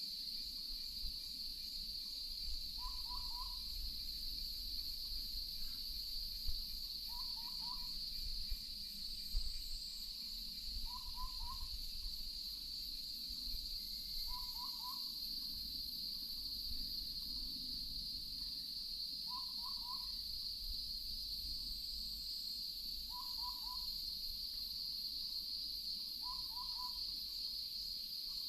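An owl gives a short two-note hoot about every four seconds, over a steady high-pitched drone of insects.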